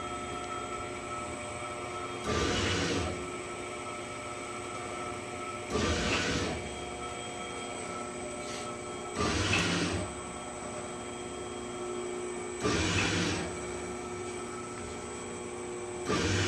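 Shinpoong SP-640 meat-patty forming machine running: a steady motor hum, with a louder mechanical stroke lasting under a second about every three and a half seconds, five times.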